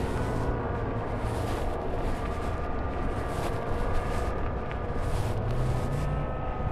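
Wind buffeting the microphone and tyres rolling over a dirt trail on a moving mountain bike, with a steady whine of several thin tones underneath.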